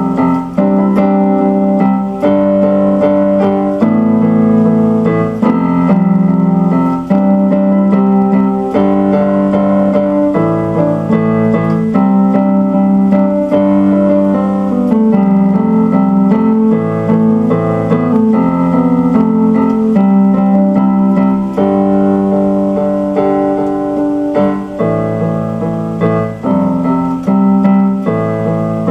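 Instrumental keyboard music: held piano-like chords changing every second or two.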